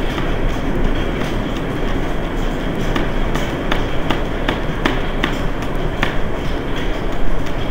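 Steady, loud rumbling background noise with scattered sharp clicks, most of them in the middle of the stretch.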